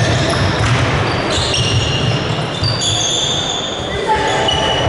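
Youth basketball game in a gym: the ball bouncing on the court, sneakers squeaking, and spectators' voices. Short high squeaks are heard from about a second in.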